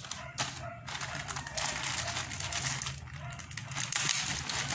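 Plastic courier mailer bag crinkling and rustling as it is handled and slit open with a utility knife, mostly from about a second in.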